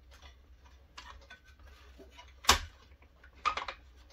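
Metal bushings clicking and knocking against the robot torso's metal side plates as they are forced by hand into their holes: a few scattered clicks, the sharpest about two and a half seconds in, then a quick run of clicks about a second later.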